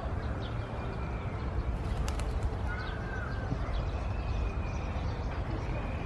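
Faint bird calls over steady low outdoor background noise, with a short call near the middle and a few quick clicks about two seconds in.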